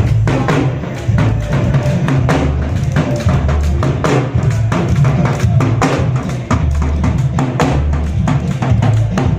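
Loud music with heavy held bass notes and rapid, dense drum hits.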